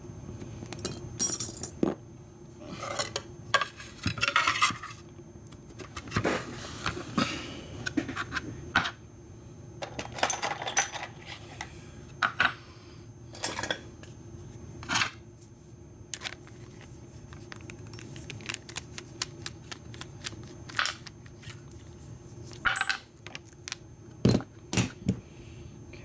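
American Series 1100 padlock being taken apart by hand: irregular metallic clicks and clinks, with a few short scrapes, as the lock body and its brass cylinder are worked and knocked against the tray.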